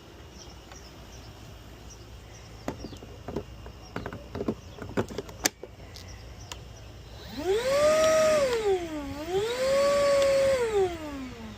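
Milwaukee M18 Fuel 6-gallon cordless wet/dry vacuum's motor starting up with a rising whine, slowing and speeding up again once, then winding down near the end. A few clicks and knocks come before it starts.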